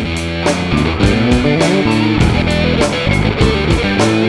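Background music with guitar and a steady drum beat.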